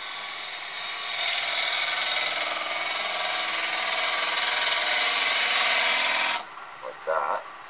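A turning tool making a shaping cut on a spinning walnut blank on a wood lathe: a steady shearing hiss that grows louder about a second in and stops suddenly about six and a half seconds in.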